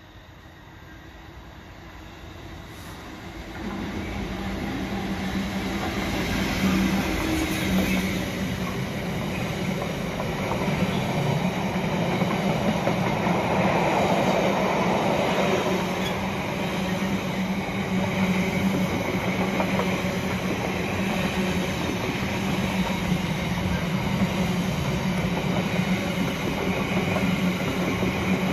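Container freight train approaching and running through, its wagons rumbling and clattering over the rails. The sound builds over the first four seconds, then holds steady as the long line of mostly empty intermodal flat wagons rolls past.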